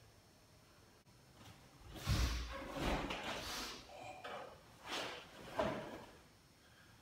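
Karate kata performed barefoot on a wooden dojo floor: a thud of a foot on the boards about two seconds in, then a series of short sharp swishes from the cotton gi snapping with each strike, about five in all.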